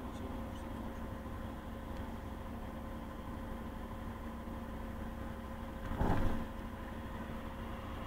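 Steady cabin noise of a moving vehicle: a low road rumble with a steady hum, and a brief louder rumble about six seconds in.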